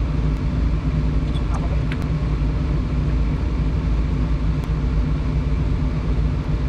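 Kobelco 350 excavator's diesel engine idling steadily, with a few faint clicks.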